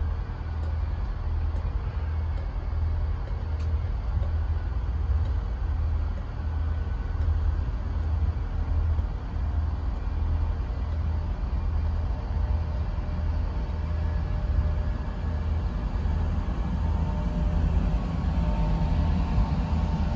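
LNER InterCity 225 electric train pulling out of the station: a steady low rumble with a regular faint clicking in the first few seconds, and a humming tone coming in near the end.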